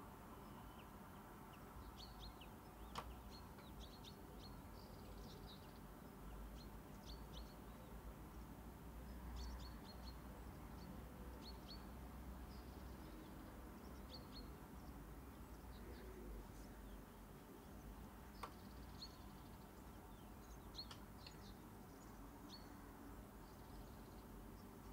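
Near silence: a low room rumble with faint, short high-pitched chirps scattered throughout, and two soft clicks.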